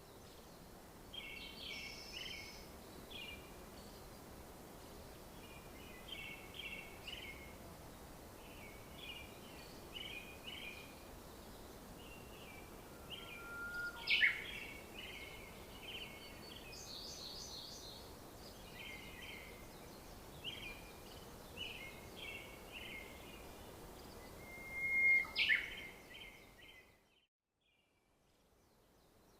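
Birds chirping in short repeated clusters of notes over a faint steady outdoor background, with two louder sharp sounds, one about halfway through and one near the end. The sound cuts out almost entirely shortly before the end.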